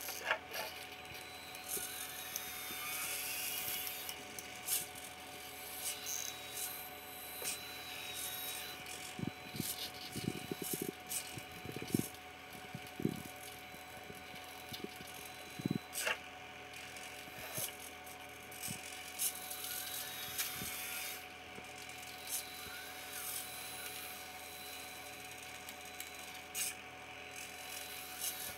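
Small electric motors driving the plastic prototype linkage of an RC CAT 906 wheel loader model whine in rising and falling glides as the arm and tool quick coupler move. Scattered sharp clicks and knocks of the plastic parts come through, mostly in the middle.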